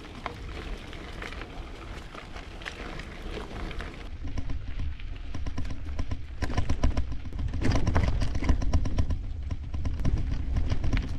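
Loaded ZiZZO Forte folding bike rolling over a dirt trail: tyres crunching with many small clicks and rattles. About four seconds in it grows louder, with a deep rumble.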